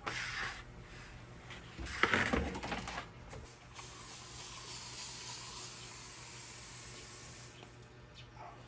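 Water running in a steady hiss, with a few short clattering bursts before it, the loudest about two seconds in.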